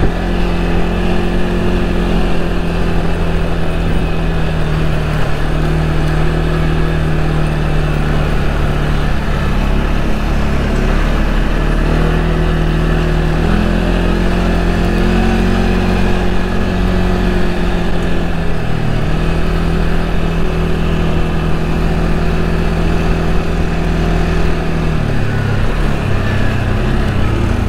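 CFMoto CForce 450 ATV engine running while ridden, with a deep exhaust note; the engine speed rises and falls a few times.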